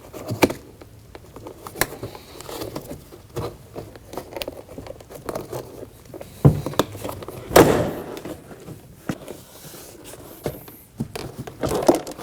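Ford Edge front door trim panel being pried off with a plastic trim tool: a run of small clicks and plastic scrapes, with two loud pops a little past the middle, about a second apart, as the panel's retaining clips let go.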